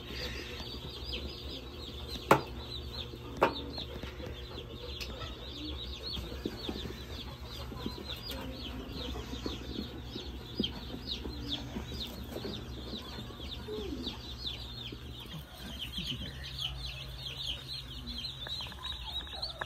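A brood of baby chicks peeping nonstop, a dense chorus of short, high, downward-sliding cheeps. Two sharp knocks stand out about two and three and a half seconds in, over a steady low hum.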